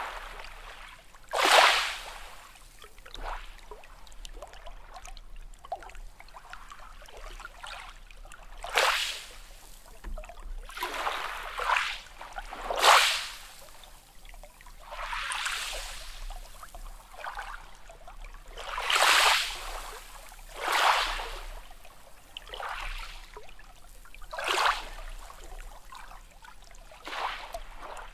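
Small sea waves washing and splashing in irregular surges, a short hissing swash every second or two.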